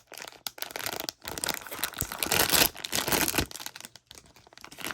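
Crinkling and tearing of a plastic surprise-toy bag being opened by hand, with a run of crackles loudest in the middle.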